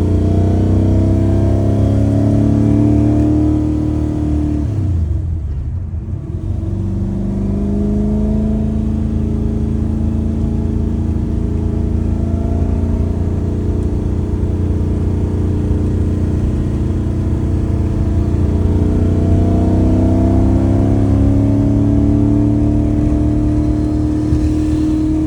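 363 cubic-inch stroker V8 exhaust through a 2.5-inch side-exit system with an X-pipe and Borla mufflers, pulling with the engine speed climbing slowly. About five seconds in the engine speed drops back briefly, then it climbs slowly again.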